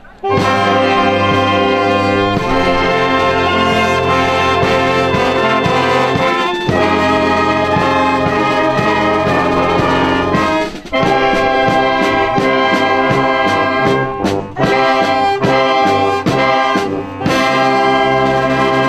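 Wind band playing, trumpets and trombones to the fore, in held chords with a few brief breaks between phrases.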